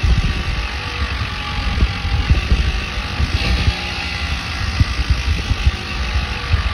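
Muffled riding noise from a bike's engine heard from inside a fanny pack: the motor runs steadily under irregular low rumbling and knocks.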